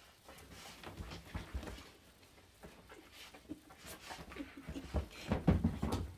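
A lurcher scrabbling and nosing at a duvet on a bed: irregular rustling of bedding and soft thumps of its feet on the mattress, heaviest about five seconds in.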